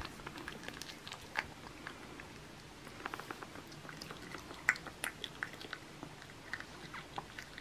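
A black cat chewing a whole feeder mouse fuzzy: faint, irregular clicks and crunches as it bites and chews.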